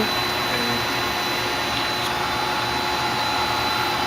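Tsugami BS-20BII CNC Swiss lathe running steadily, with a faint whine from the main tool plate's Y-axis servo as it traverses.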